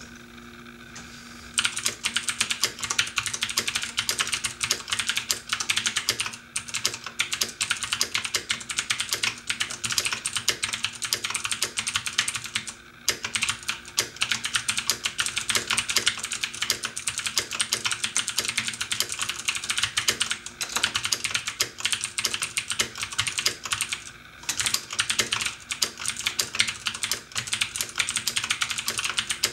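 Fast, continuous typing on a mechanical keyboard with Cherry MX switches, a dense run of key clicks. It starts about a second and a half in and pauses briefly a few times, over a low steady air-conditioner hum.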